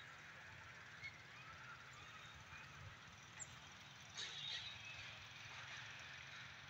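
Faint outdoor ambience: a steady high hiss with a few short faint chirps, and a brief rustle about four seconds in.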